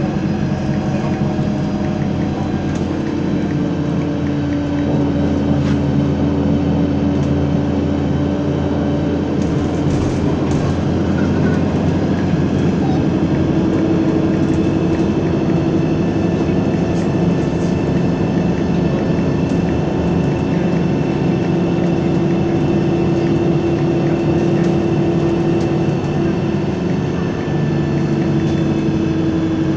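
Isuzu Citibus city bus running at speed, heard from inside the passenger cabin: a steady engine drone with road and rattle noise. The engine hum steps up in pitch about halfway through.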